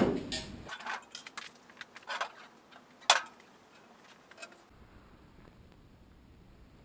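Light rubbing and scattered small clinks as a steel letter is wiped down with an acetone-dampened cloth on a steel welding table, with one sharper clink about three seconds in. From about two-thirds through only a faint steady hum is left.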